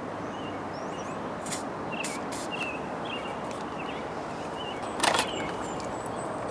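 Outdoor background noise with small birds chirping in short repeated calls, a few faint clicks, and one brief loud burst of noise about five seconds in.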